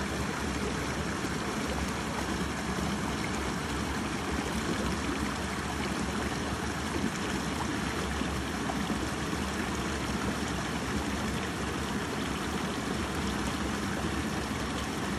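Steady rushing of flowing stream water, even and unbroken.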